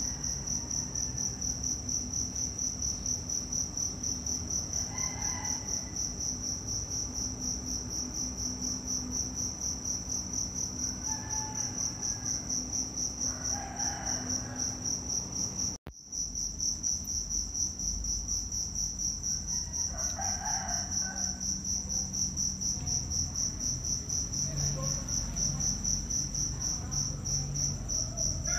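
Insects chirring in a steady, high-pitched, rapidly pulsing drone, broken off for an instant about halfway through.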